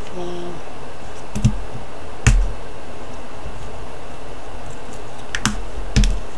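Four light clicks and taps from small craft pieces and tools being handled on a table, spread through a few seconds, the second and last the sharpest, over a steady background hiss.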